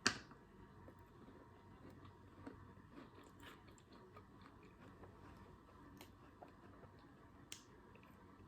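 A single sharp crack as teeth bite into a cold chocolate-covered strawberry, followed by quiet chewing with faint, scattered small clicks and crunches.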